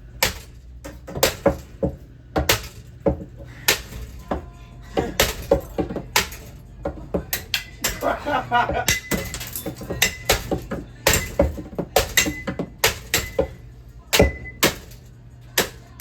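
A ceiling fan being smashed: an irregular run of hard blows, about one or two sharp impacts a second, some ringing briefly after the hit.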